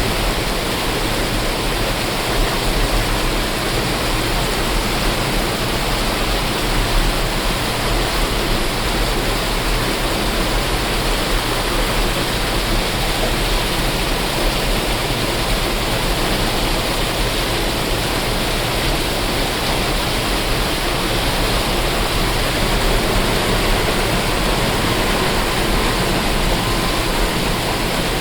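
Waterfall: water falling and splashing with a steady, unbroken rush.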